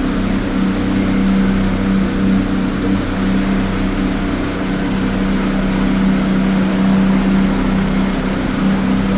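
Motorboat under way, its engine running with a steady drone over the rush of water along the hull and wake.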